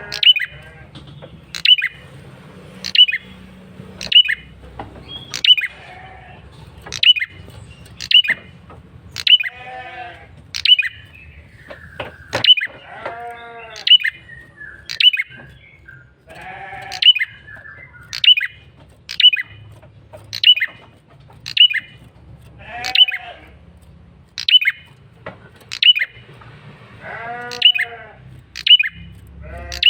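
Male prenjak kepala merah calling: sharp, high, downward-sweeping notes repeated steadily about once a second. Several times a lower, longer call from another animal joins in.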